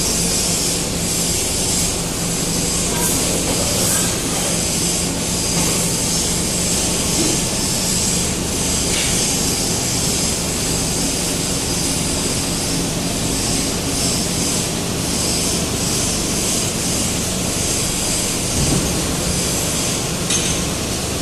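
A 400-ton plastic injection moulding machine running while it moulds helmet shells. It makes a steady mechanical hum with a hiss over it and no pauses.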